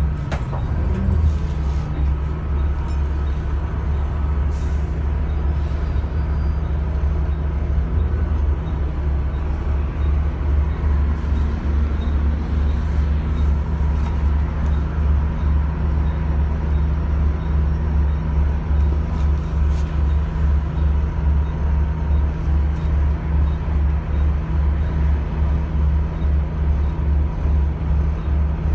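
Volvo B7TL double-decker bus's six-cylinder diesel engine running, heard from inside the bus as a deep hum. From about a third of the way in it throbs evenly, about twice a second.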